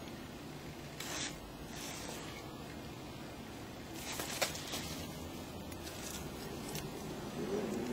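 Handling noise of a handheld camera: low rustling and rubbing, with brief scrapes or knocks about a second in and again about four and a half seconds in.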